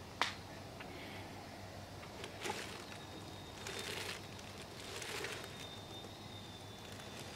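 Handling noise from a plastic welding helmet: a sharp click just after the start, a knock about two and a half seconds in, then rustling as the helmet is gripped and turned on its plastic sheet.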